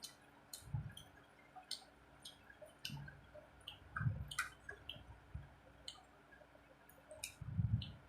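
Eating sounds: wet mouth clicks and smacks while chewing a meal of rice and curry, irregular and close up, with a few soft low thumps.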